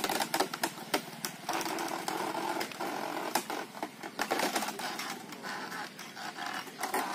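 Bullock-driven wooden sugarcane crusher turning, its wooden rollers and gearing creaking and knocking as cane stalks are fed through, with a dense run of sharp clicks.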